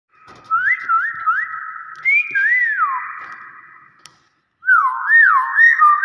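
Common hill myna whistling: a run of quick rising and falling whistled notes, a pause about four seconds in, then a second run.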